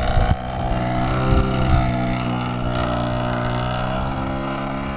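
Radio-controlled model airplane's small engine running steadily at high speed, a continuous buzz whose pitch drifts slightly.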